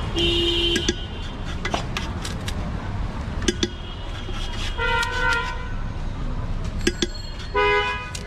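Vehicle horns honking in street traffic: one honk right at the start, another about five seconds in and a short one near the end, over a steady low traffic rumble with a few sharp clicks.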